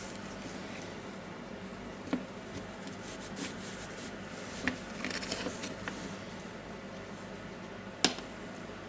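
Small hand-tool handling noises: scattered light clicks and brief scraping as the opened nut gun's controller is picked at and cleaned, with a sharper click about eight seconds in.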